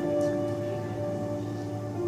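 Background music: soft, steady held chords.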